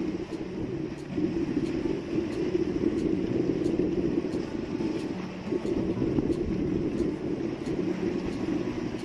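Fishing boat's diesel engine running steadily: a low rumble with a faint regular ticking over it.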